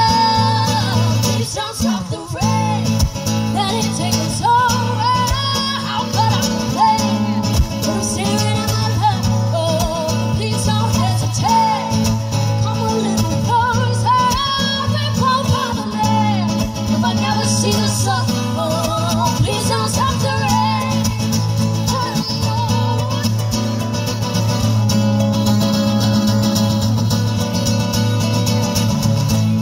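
Live duo music: two women singing with an acoustic guitar and a second guitar played through a PA. In the last part the singing stops and the two guitars carry on alone.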